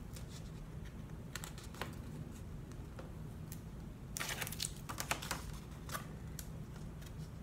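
Paper envelopes being handled and lined up on a work surface: scattered light taps and rustles, with a quicker run of them about four seconds in, over a faint steady low hum.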